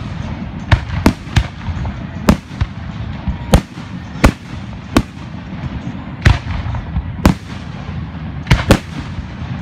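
Fireworks going off: about a dozen sharp, irregularly spaced bangs over a continuous low rumble of further bursts.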